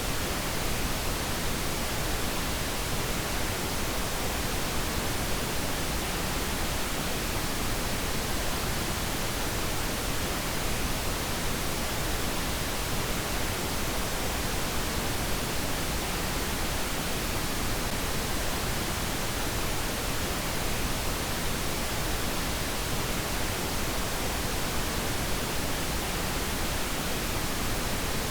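Steady pink noise: an even, unchanging hiss spread across low and high pitches, played as a sleep-inducing noise.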